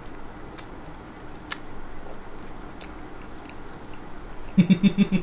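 A crumb-coated fried chicken drumstick being bitten and chewed, with a few faint crunches. Near the end a person's voice breaks in with a quick run of short pulsing sounds.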